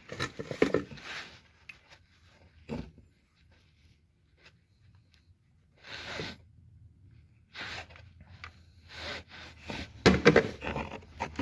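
Short, scattered rubbing and scraping sounds, a second or more apart, of the transmission drain plug being slowly loosened by hand. A few of them bunch together near the end.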